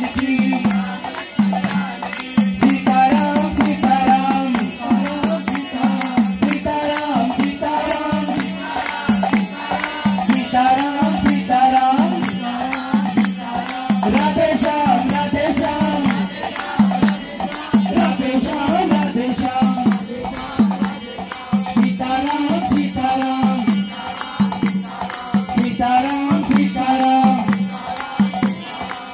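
Hindu devotional bhajan sung by a group into microphones, in repeating melodic phrases. It runs over a steady rhythm of dholak drum, small hand cymbals and hand clapping.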